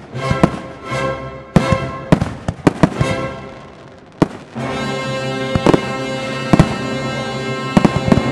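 Aerial fireworks shells bursting in sharp bangs, scattered at first and coming in a rapid cluster near the end, over music that settles into a long held chord about halfway in.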